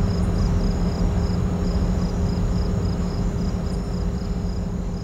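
A steady low mechanical hum, with night insects chirping in a steady rhythm of about three high pulses a second.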